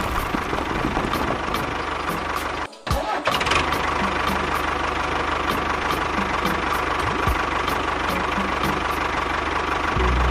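Engine running at a steady idle, with faint regular ticks about three a second; it cuts out briefly about two and a half seconds in, then runs steadily again.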